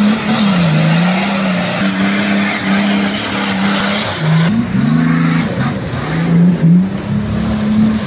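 Nissan Patrol Y60's swapped-in V8 engine revving hard under load as the 4x4 churns through deep mud. The engine pitch rises and falls, with a few sudden jumps in pitch.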